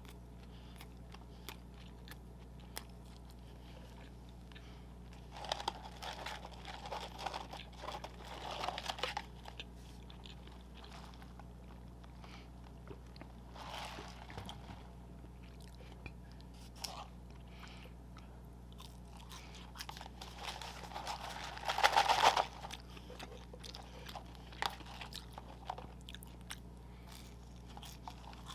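A person biting and chewing McDonald's fast food, with crunchy bites and chews in several bursts; the loudest crunching is about three quarters of the way through.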